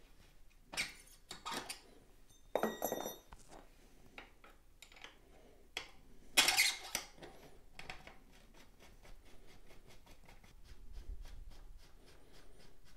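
Metal bicycle thru axle sliding through a road bike's rear hub and being threaded into the frame by hand: scattered clicks and scrapes, a brief metallic ring about three seconds in, then a run of quick light ticks near the end.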